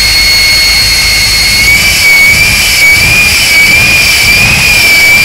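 Jet-engine semi truck's turbine running with a loud, steady high-pitched whine over a low rumble. The whine starts to waver slightly in pitch about two seconds in.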